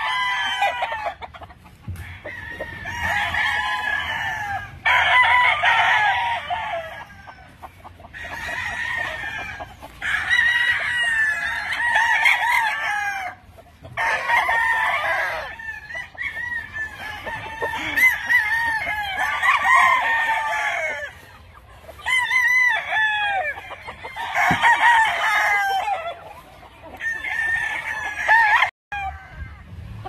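Many gamefowl roosters crowing one after another, the crows overlapping into a near-constant chorus with only brief pauses between them.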